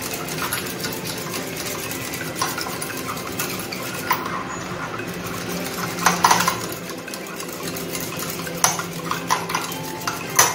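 Metal hand whisk beating egg and sugar in a glass bowl: continuous whisking with sharp clinks of the whisk against the bowl, the loudest about six seconds in and more near the end.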